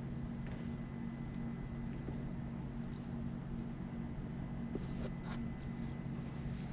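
Steady low hum of an idling engine, a few even low tones holding unchanged, with a couple of faint ticks about five seconds in.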